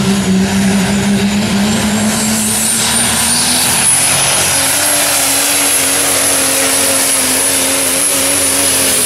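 Super stock diesel 4x4 pulling truck at full throttle under the load of the sled: a loud, steady engine note with a high turbocharger whistle that climbs over the first few seconds and then holds.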